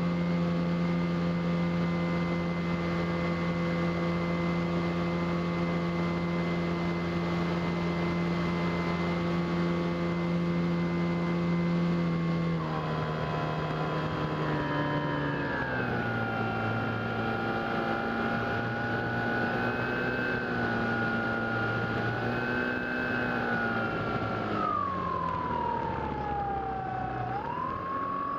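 Electric RC plane's brushless HeadsUpRC 4248 outrunner motor and 13x6.5 APC propeller, heard from the cockpit, giving a steady pitched whine. About twelve seconds in the pitch steps down as the throttle is eased back, then wavers lower. Near the end a high whine falls and then rises again to a steady pitch.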